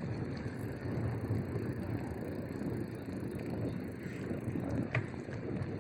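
Marin Gestalt gravel bike being ridden on a wet surface: steady rolling tyre noise with mechanical rattling from the bike and a sharp click about five seconds in.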